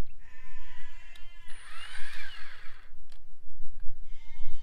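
Sheep bleating three times in a row, over a steady low rumble.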